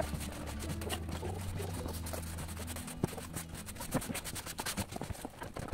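Plastic broom sweeping flagstone paving: the bristles scratch over the stone in quick repeated strokes.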